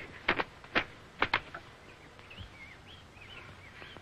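A whip lashing, about five sharp cracks in the first second and a half, some in quick pairs. Faint bird chirps follow.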